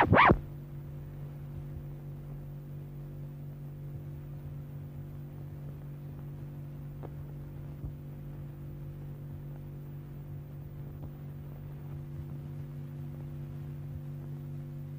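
Steady low electrical hum with a few even overtones on an old film soundtrack, with a couple of faint clicks about halfway through. A short burst of music ends right at the start.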